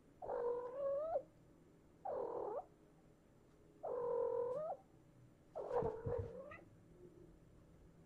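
A cat meowing four times, each call under a second long with short pauses between.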